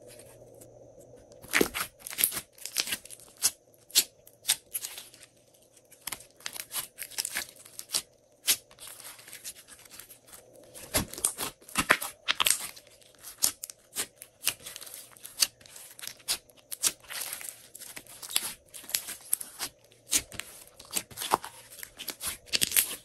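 Glossy slime squeezed and kneaded by hand, giving a dense, irregular run of sharp clicks, crackles and pops. It starts about a second and a half in, after a quieter moment.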